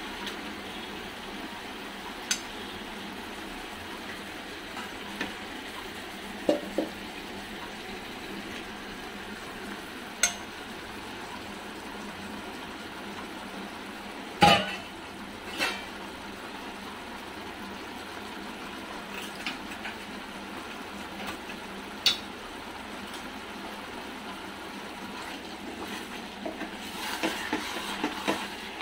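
Marinated mutton pieces sizzling steadily in a kadai of hot oil and spice paste, with occasional sharp knocks of a wooden spatula against the pan, the loudest about halfway through, and a quick run of clacks near the end as the meat is stirred.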